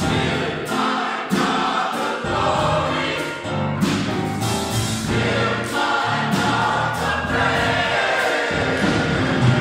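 Church choir singing.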